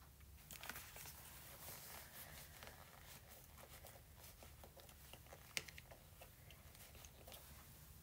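Near silence, with faint scattered rustles and light clicks and one sharper tick about five and a half seconds in.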